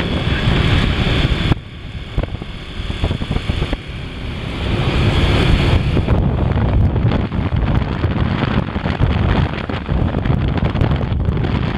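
Wind rushing and buffeting the microphone of a moving motorcycle, over the running engine and road noise. The buffeting eases briefly about two seconds in and grows heavier after about five.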